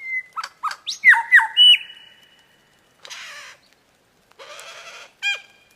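Lyrebird calling: a quick run of loud whistled notes that sweep sharply down and up, then two short noisy bursts, and one more whistled sweep near the end.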